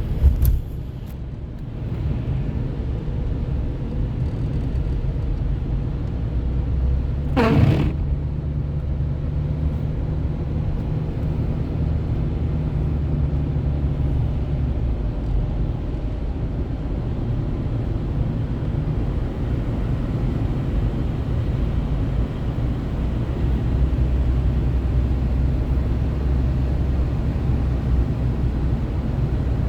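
Car driving: a steady low rumble of engine and tyres. There are a few knocks at the very start and a brief falling sweep about seven seconds in.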